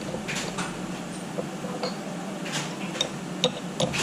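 Light metallic clicks and clinks from tools and metal parts being handled at a CNC machine, irregular and sharper near the end, over a steady low hum.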